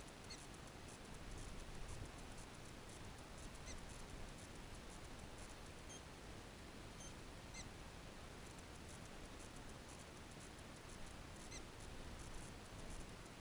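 Faint, distant black-tailed prairie dog chirps: a handful of very short, high calls a few seconds apart over a steady low rumble.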